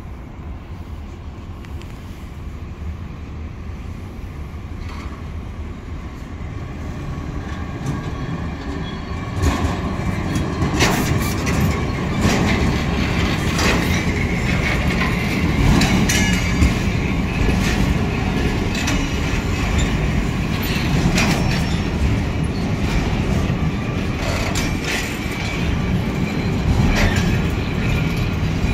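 Diesel-shunted container freight train rolling slowly past. A low rumble builds over the first nine seconds or so, then stays loud, with the wheels clicking and knocking repeatedly over the rail joints.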